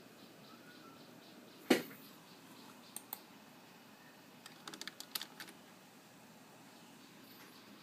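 Scattered clicks and taps on a computer keyboard: one sharp, louder tap, then two clicks, then a quick run of small clicks, over a low background hiss.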